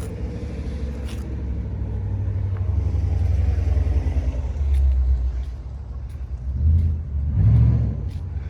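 A loud, low, uneven rumble that swells and fades.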